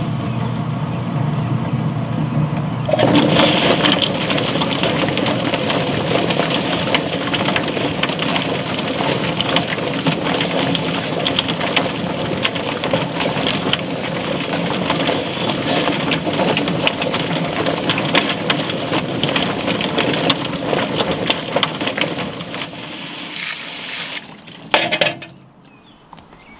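Drum-style chicken plucker running with a scalded bird tumbling against its rubber fingers. Its motor hums alone at first, then a hose sprays water into the tub from about three seconds in, giving a steady rush of water and tumbling. The noise stops near the end, followed by a single thump.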